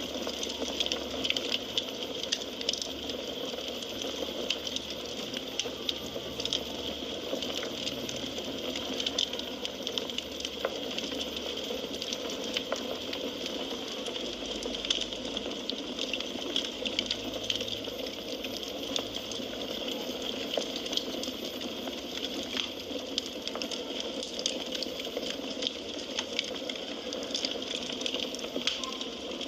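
Wood fire burning in a fireplace: a steady hiss of flames with dense small crackles and frequent sharper pops.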